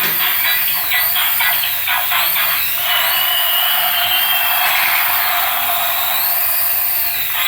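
Battery-powered toy making a steady, thin whirring hiss, with a faint high tone partway through.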